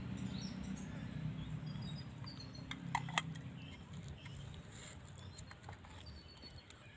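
Faint soft rubbing and squishing of hands working masala into whole fish in a steel plate, with a few light clicks about three seconds in.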